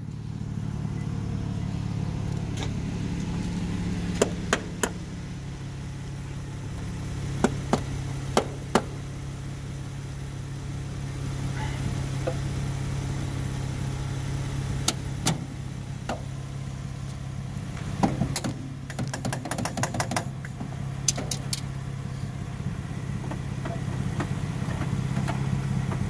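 A car engine idling steadily, with a scatter of sharp metal clicks and clanks as jumper-cable clamps are handled and fitted onto the battery terminals for a jump start.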